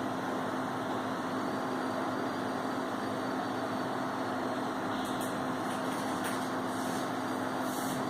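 Steady fan hum, an even hiss with a low steady tone under it, with a few faint clicks in the second half.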